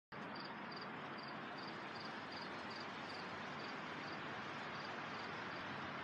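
Steady rushing hiss of wind through leafy trees, with an insect chirping in short high double pulses about two and a half times a second, stopping near the end.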